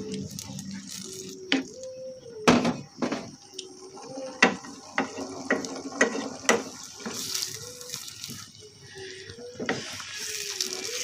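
Wooden spatula stirring a squid stir-fry in a frying pan, knocking and scraping against the pan at irregular intervals, with the food sizzling faintly.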